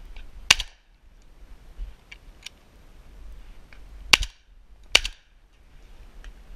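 Shotgun fired at flying doves: one shot about half a second in, then two quick shots a little after four seconds, under a second apart.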